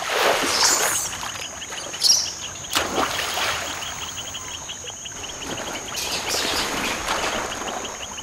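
Water splashing as rhesus macaques jump into and swim in a pool: a surge of splashing at the start, a couple of sharp slaps around two to three seconds in, and more splashing near the end. Under it runs a steady insect chorus with a fast, even pulse, and a few short high chirps.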